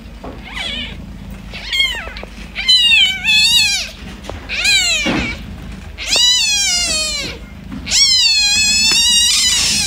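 Newborn kitten crying with high, thin mews, about six of them, each rising then falling in pitch, the later ones drawn out over a second or more.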